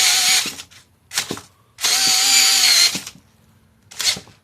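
Cordless brushless hammer drill running a lag bolt in two trigger pulls of about a second each, each a steady motor whine, followed by a short knock near the end.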